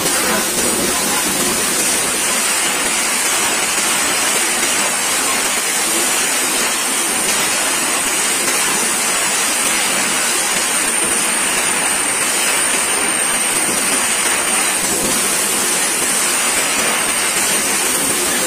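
Train wagons rolling directly over the rails overhead, their steel wheels making a loud, steady rushing rumble with a thin high whine above it.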